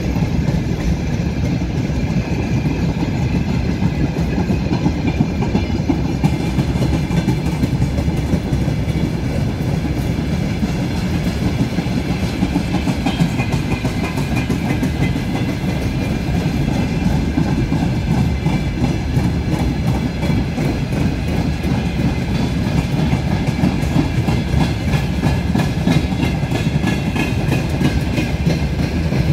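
Freight train of open wagons rolling past on the broad-gauge line. A steady heavy rumble carries a continuous rhythmic clatter of wheels over rail joints.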